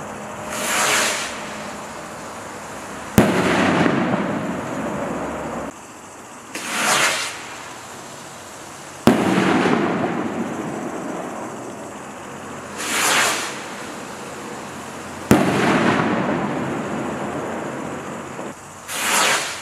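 Black Cat Black Hawk flash rockets fired one after another. Each rocket goes up with a whoosh of about a second, then about two seconds later bursts with a sharp bang, followed by a tail that fades over two to three seconds. There are four launches and three bangs; the last rocket goes up near the end.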